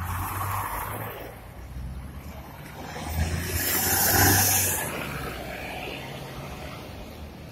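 City bus engine running as the bus pulls away from the stop and drives close past, growing loudest about four seconds in with a burst of hiss, then fading.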